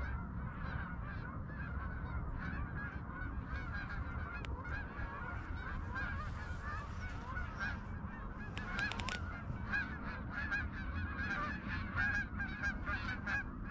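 A flock of Canada geese honking, many short calls overlapping and growing busier toward the end, over a low rumble of wind. A few sharp clicks come about nine seconds in.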